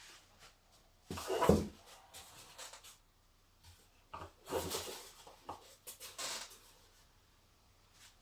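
A Medion 65-inch TV's built-in speakers sound in three short bursts, the first, about a second in, the loudest. The test is meant to bring out the squeak of resonant interference in the set.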